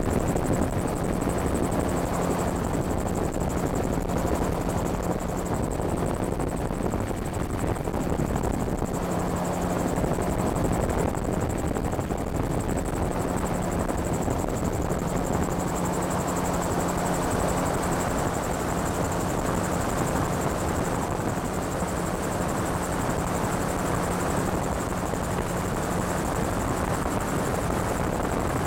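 Light airplane's engine and propeller droning steadily, heard from on board in flight, with a constant low hum under a broad rush of noise.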